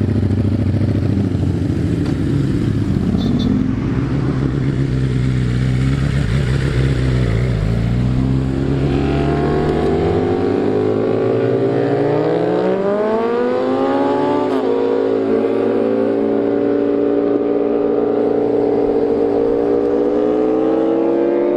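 Ducati Panigale V4 superbike's V4 engine with a Termignoni full-system exhaust. It runs close with a heavy low note at first, then about ten seconds in revs up with a rising pitch as the bike pulls away, settling into a steadier, higher note.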